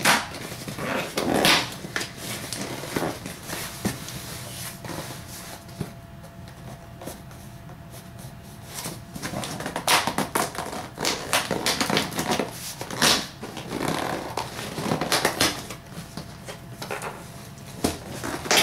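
Cardboard shipping box being pulled and torn open by hand: irregular ripping, scraping and crinkling of the flaps and tape, quieter for a few seconds in the middle.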